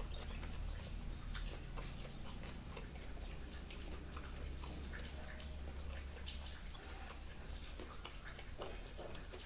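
Close-miked eating sounds: chewing with small wet mouth clicks and smacks, scattered irregularly, over a faint low hum.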